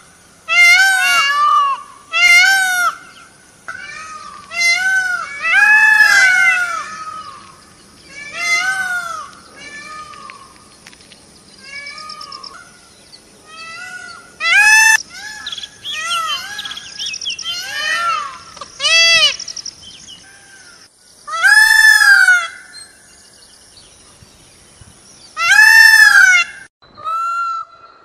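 Peacock calling: repeated loud wailing cries, each rising then falling in pitch, often two or three in quick succession, with quieter calls in between. A faint steady high whine runs underneath.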